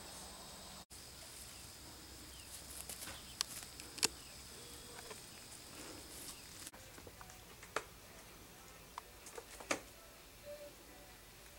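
Five-week-old Border Collie puppies moving about: faint scattered ticks and taps, with a couple of brief soft squeaks.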